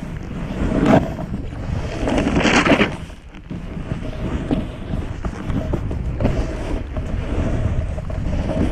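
Wind buffeting the camera microphone over the scrape and hiss of a snowboard carving through snow, with louder swells of hiss about a second in and again at two to three seconds in.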